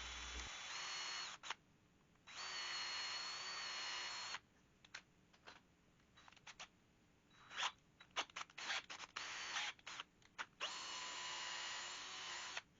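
Power drill boring a hole in wood in three short runs, each a steady whine, while the hole is stepped up from a 1/8-inch bit toward 5/16 inch. Between runs, a scatter of sharp clicks and taps.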